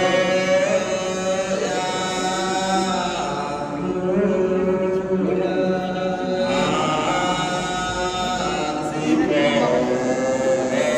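A group of voices chanting in long held notes, in the style of Ethiopian Orthodox church chant, a little softer in the middle.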